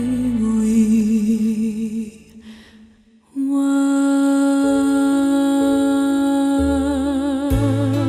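Electronic tune from a yellow and purple owl shape-sorter toy's sound chip: a simple melody of held, wavering notes. It fades out about two seconds in and starts again a second or so later.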